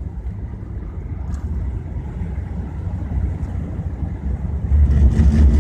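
Car tyre and road noise heard inside the cabin, a steady low rumble. Near the end it turns into a louder, steady low hum, a weird droning of the tyres on a changed road surface, likened to driving over the steel-grate deck of the Mackinac Bridge.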